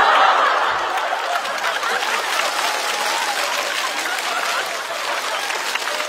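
Studio audience applauding after a punchline, loudest at the start and slowly tapering off.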